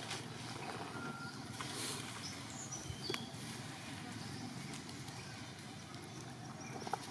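Steady outdoor background noise with a few short high chirps and a brief tone, broken by two sharp clicks: one about three seconds in and a louder one near the end.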